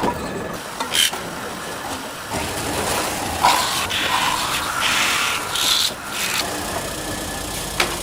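A tool rasping and rubbing against metal in uneven passes, as in filing or scouring a kettle's metal by hand.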